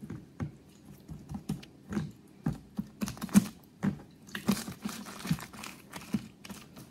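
Irregular light clicks and crinkles from a bamboo sushi rolling mat and a sheet of nori being handled as a sushi roll is shaped and rolled.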